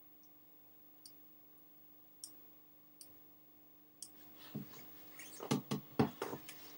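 Computer mouse clicking while editing on a computer: single clicks about a second apart, then a quicker run of louder clicks and knocks in the last few seconds.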